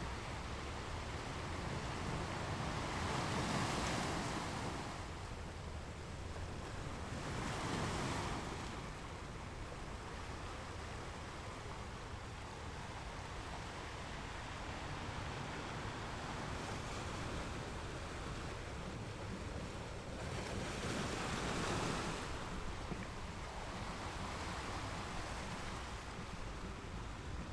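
Ocean waves breaking and washing up on a shore, several surges swelling and fading, with a steady low rumble of wind on the microphone.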